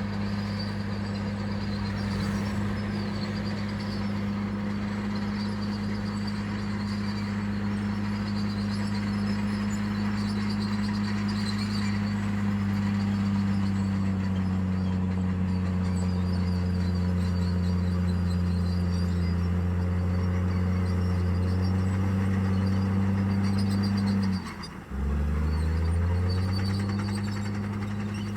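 Heavy-equipment diesel engine running steadily under load. Near the end it briefly dips, then picks up again with its pitch climbing.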